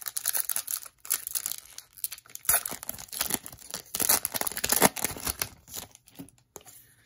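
Foil wrapper of a baseball card pack torn open and crinkled by hand: a run of crackling rips and crinkles, loudest around the middle, dying down near the end.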